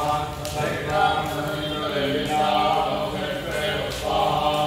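Vedic Sanskrit mantras chanted without a break, the voice moving in small steps of pitch.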